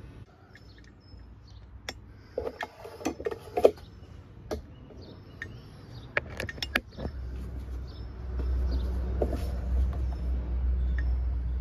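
Metal tools and small engine parts clinking and knocking on a wooden workbench: a run of sharp clicks and clanks over the first seven seconds, followed by a steady low rumble.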